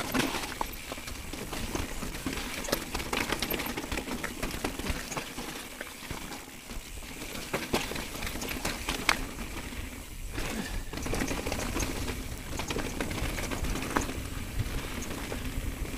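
Downhill mountain bike rolling fast over a rocky, gravelly trail: tyres crunching over loose stones, with rapid, irregular clattering and clicking from the bike rattling over the rocks.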